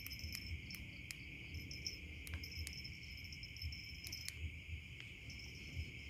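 Steady chorus of night insects, a continuous high trill with a second, higher chirping that comes and goes. Scattered light clicks and faint low thumps from the phone being handled as it moves through the grass.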